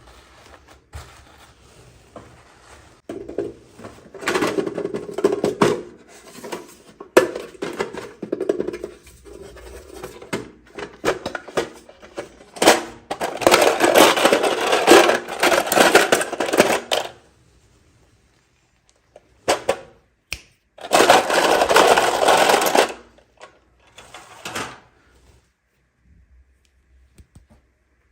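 Toy packaging being handled and opened: plastic crinkling and rustling in three long bursts, with scattered clicks and taps between them.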